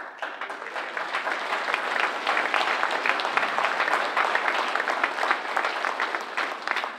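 Audience applauding: a dense, steady run of many handclaps that dies away near the end.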